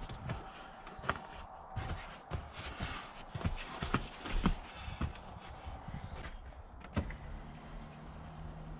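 Scattered knocks, thumps and scuffs of a person moving on hands and knees and pressing down a stiff rubber horse-stall mat laid on a pickup's rear cab floor, with a sharper knock about seven seconds in. A low steady hum starts just after it.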